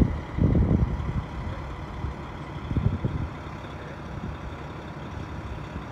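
Diesel engine of a charter coach bus idling steadily, with louder low rumbles about half a second and again about three seconds in.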